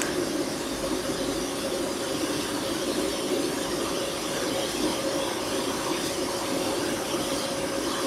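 Cooling fans of several running GPU mining rigs whirring together in a steady wash of air noise, with a steady whine over it.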